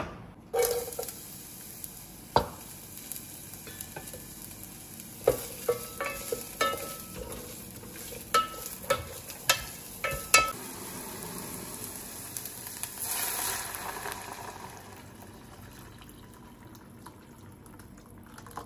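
Chopped red onion sizzling in hot oil in an enamel saucepan, with a wooden spatula knocking against the pot as it is stirred. About 13 seconds in, water poured from a kettle hisses on the hot pan, and the sizzling then settles to a quiet pour.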